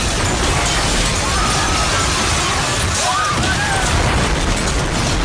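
Loud, unbroken rumbling and crashing of earthquake damage, with a few shouting voices rising and falling over it.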